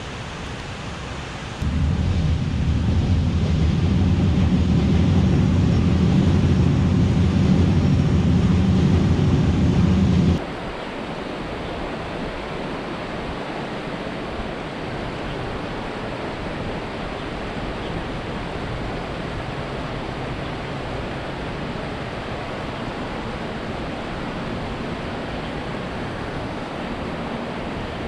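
Heavy low rumble of a train crossing the railway bridge overhead. It starts suddenly about two seconds in and cuts off abruptly around ten seconds. A steady outdoor hiss of wind and water follows.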